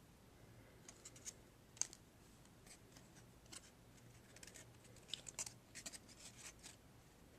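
Faint, irregular clicks and scrapes of trading cards being handled and slid past one another, coming more often in the second half.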